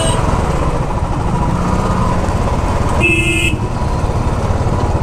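Royal Enfield Bullet's single-cylinder engine running steadily as the motorcycle rides slowly, with a short vehicle horn toot about three seconds in and the end of another right at the start.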